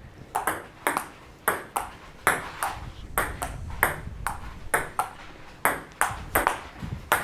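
Table tennis rally: the ball clicking alternately off the paddles and the table in a steady back-and-forth, about three clicks a second.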